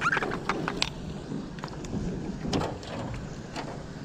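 Small channel catfish splashing and thrashing at the water's surface as it is hand-lined in beside a jon boat: several sharp splashes, mostly in the first second and again a little past the middle.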